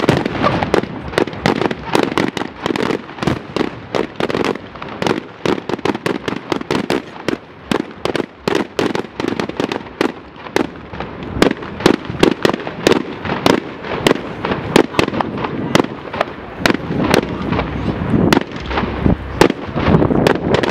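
Fireworks display: a rapid barrage of sharp bangs and crackles, several a second, with heavier low booms near the end.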